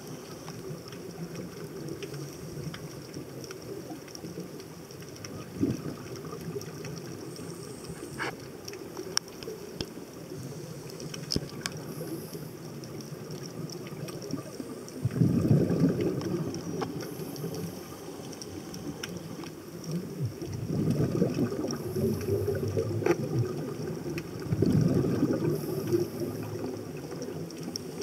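Underwater sound on a scuba dive: a diver's exhaled breath bubbling out of the regulator in three loud gurgling bursts of about two seconds each in the second half. Beneath them is a steady low rumble with scattered sharp clicks.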